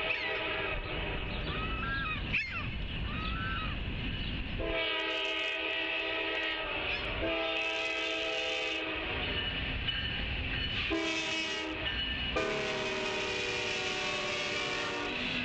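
Norfolk Southern diesel locomotive's air horn sounding the grade-crossing signal: two long blasts, a short one, then a final long blast, starting about five seconds in as the train approaches the crossing.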